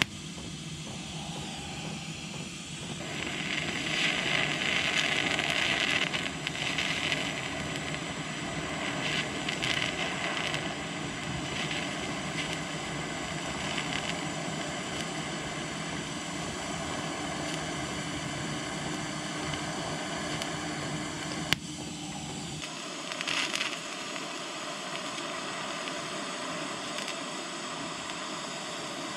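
Yeswelder 200P TIG welding arc running on 1/8-inch mild steel at about 80 amps: a steady hiss. One sharp click comes about two-thirds through, and after it the hiss turns thinner with a steady hum under it.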